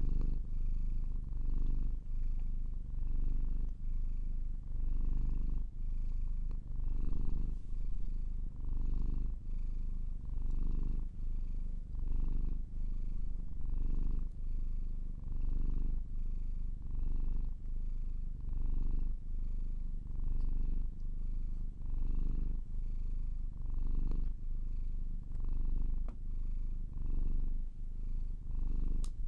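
Domestic cat purring steadily, swelling and easing in a regular rhythm with each breath in and out. A single faint click comes near the end.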